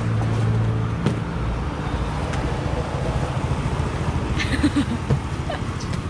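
Roadside market background noise: a steady low rumble of passing traffic, heaviest in the first second, with a few light clicks and knocks.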